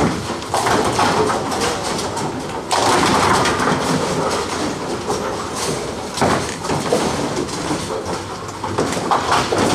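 Tenpin bowling alley din: balls rolling down the lanes and pins clattering on several lanes at once, with a loud crash about three seconds in and sharper knocks later on.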